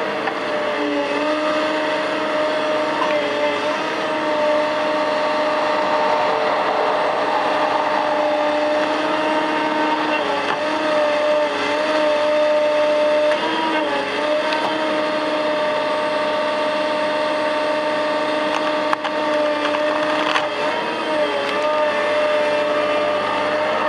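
Cat M316D wheeled excavator's diesel engine and hydraulics running steadily under load, a held droning tone that dips briefly in pitch a few times as the boom and head are worked. A couple of light ticks come in the later part.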